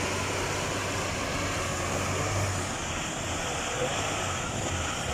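Leyland tanker truck's diesel engine running with a steady low hum as the truck manoeuvres slowly.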